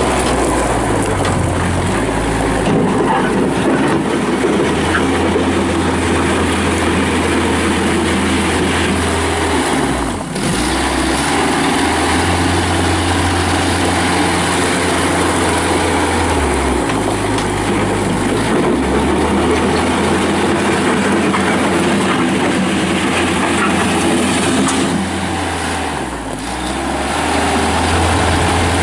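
Kubota diesel engine of a Bobcat B300 backhoe loader running as the machine is worked. Its pitch steps up and down every few seconds, with brief dips about ten seconds in and near the end.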